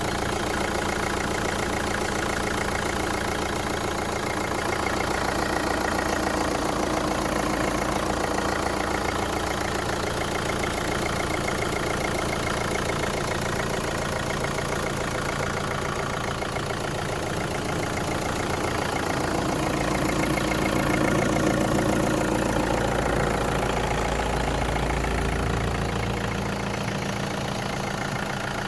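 Opel Astra J 1.7 CDTI four-cylinder turbodiesel engine idling steadily, making a noise that the owner finds strange.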